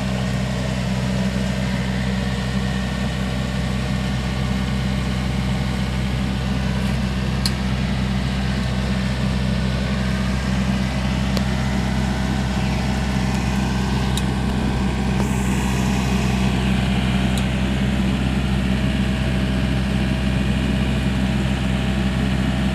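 Diesel engine of a Yanmar combine harvester running steadily at an even speed, with a few faint clicks.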